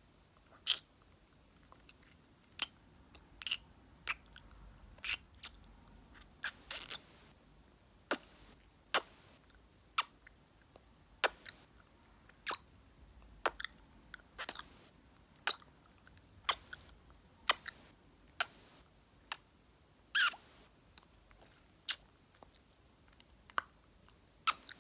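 Close-miked ASMR kissing and mouth sounds: short, sharp lip smacks and kisses about once a second, a few of them doubled or drawn out.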